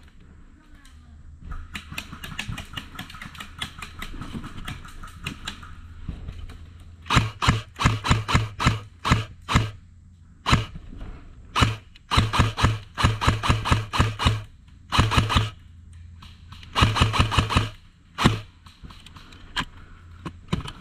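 Airsoft rifle firing several bursts of rapid shots, each shot a sharp click with a thud, strung together in strings of about a second in the second half. Before that, a fainter, busier patter of clicks.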